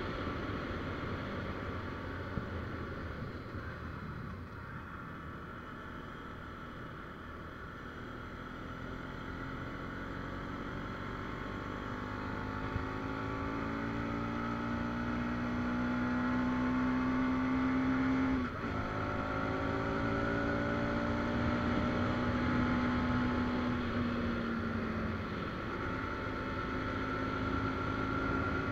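Motorcycle engine under way on the road, with a steady rush of wind and road noise. The engine note falls away early, then climbs steadily for about ten seconds before dropping sharply at a gear change about two-thirds through, climbs again and eases off near the end.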